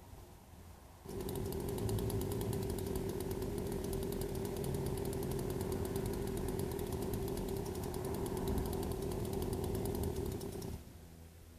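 Poulan 18-inch two-stroke gas chainsaw opened up to full throttle about a second in, running at a steady high pitch for about ten seconds. It then drops back to a low idle near the end.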